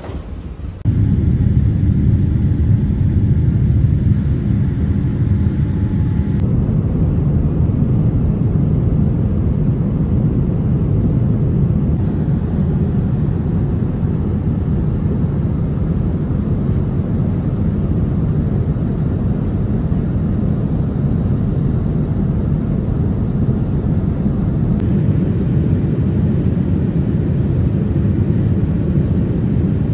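Steady low roar inside an airliner's cabin: jet engines and rushing air, starting about a second in.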